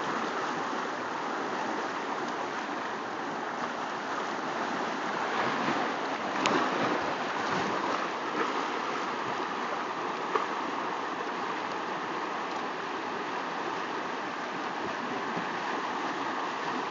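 Whitewater rushing over a shallow creek rapid, a steady hiss of water, with two brief sharp knocks about six and ten seconds in.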